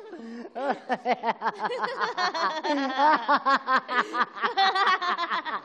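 People laughing hard: a fast run of short, high-pitched 'ha' sounds that grows louder about two seconds in.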